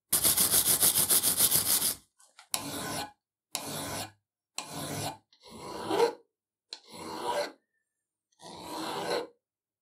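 Hand file rasping across a small metal part clamped in a vise. The first two seconds are a quick run of short, loud strokes, followed by six slower, separate strokes with short pauses between them.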